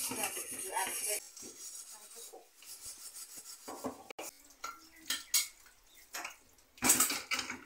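Stainless steel pots and utensils being hand-washed and scrubbed in a kitchen sink: irregular clinks, knocks and scrapes of metal on metal. The loudest clatters come at the start and again about seven seconds in.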